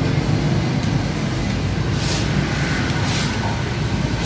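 Steady low rumble of passing road traffic, with a couple of brief hissing swells about two and three seconds in.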